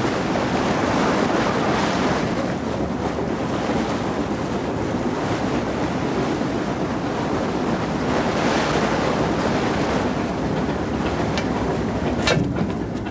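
Steady rush of water churned between two boats lying side by side, with wind, swelling twice. A few sharp knocks near the end.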